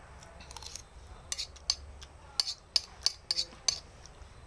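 Cutlery clinking and scraping against a bowl of noodles during eating, about eight sharp, irregular clinks over a couple of seconds.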